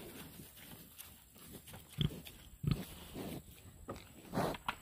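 Pigs giving short grunts as they feed: a couple about two seconds in and a few more near the end.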